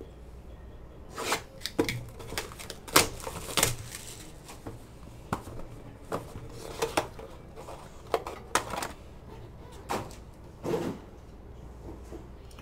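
A sealed trading-card box being opened by hand: irregular rustling of wrapper and cardboard flaps, with scattered clicks as the hard plastic case holding the autographed card is pulled out and handled.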